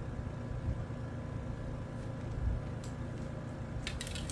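A steady low mechanical hum runs throughout. Near the end come a few quick light clicks as the sections of the shock-corded antenna mil whip snap together.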